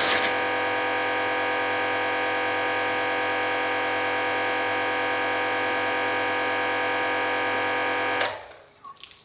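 Kranzle 1152 TST pressure washer's electric motor and pump running with a steady hum of several tones, then stopping abruptly about eight seconds in.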